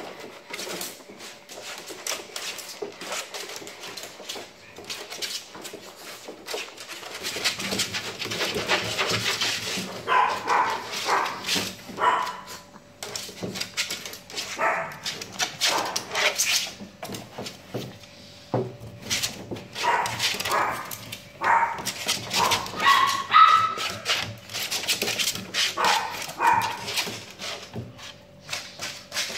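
Small dogs giving short, high yips and whines over scuffling and rustling. The calls start about a third of the way in and come in clusters.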